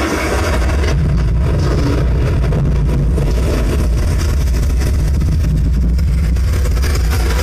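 A loud, steady, deep bass rumble from a movie soundtrack played through a subwoofer driven by a home-made amplifier. The bass grows fuller about a second in.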